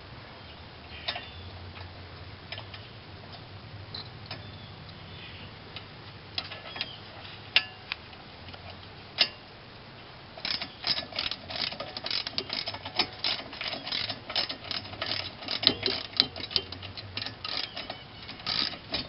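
Ratchet wrench clicking as the bottom brake caliper bolt is backed out. A few separate clicks come first, then a fast, even run of clicks from about ten seconds in.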